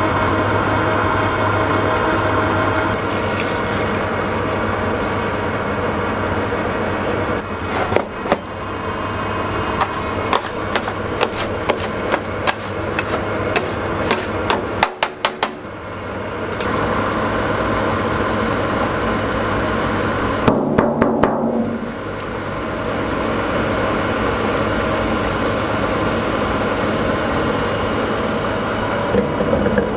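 Electric rice-grinding mill running with a steady hum. About a third of the way in, a stretch of rapid sharp clicks and rattles sounds over it.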